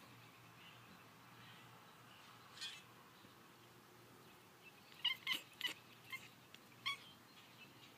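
Cat chirping at birds it is watching: one short chirp about two and a half seconds in, then a quick run of about six short chirps between five and seven seconds in.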